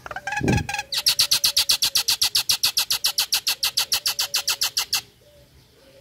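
Common myna (jalak nias) giving its rapid rattling 'ngekek' call: a few rough notes, then a fast even series of about seven sharp notes a second for some four seconds, stopping abruptly.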